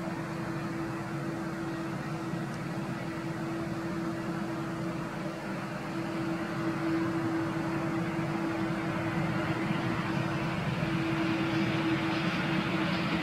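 Airbus A319-114's twin CFM56 jet engines running at low power during the landing rollout: a steady hum with a faint rushing, slowly growing louder as the airliner comes nearer.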